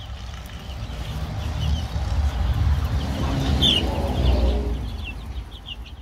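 Chicks peeping, a few short high peeps that come more often near the end, over a low rumble that builds up, is loudest around the middle and fades away.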